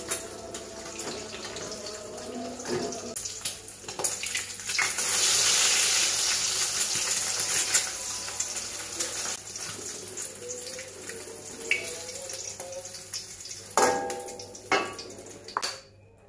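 An egg frying in hot oil in a wok, sizzling steadily and swelling louder for a few seconds midway. Near the end come a few sharp metal clinks of the spatula against the wok.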